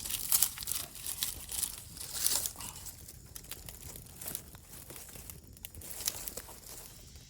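Dry leaves and twigs crackling, dense and loud at first, then thinning to scattered snaps as the leaves are set alight to kindle a campfire.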